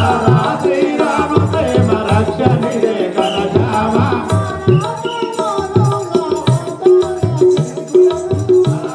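Live folk-drama accompaniment: a hand drum beating a steady rhythm of about two strokes a second under a steady held drone and a wavering melody line.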